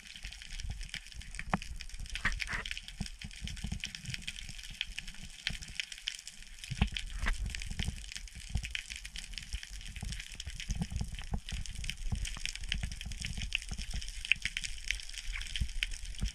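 Sea water heard by a camera held underwater: an uneven low rumble of moving water with a steady hiss and constant fine crackling clicks.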